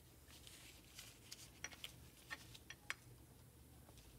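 Faint light clicks and taps as metal-backed brake pads are handled and slid into a brake caliper, about half a dozen small knocks spread over a couple of seconds.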